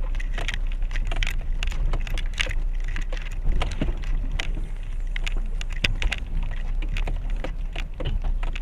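Duster SUV crawling in low first gear over a rocky mountain track, heard from inside the cabin: a steady low rumble with frequent small knocks, creaks and rattles as the tyres and suspension work over the stones.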